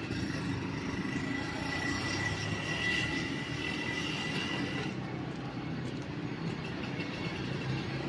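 A road vehicle running steadily with a low rumble. A thin high-pitched whine sounds over it from about a second in and stops about five seconds in.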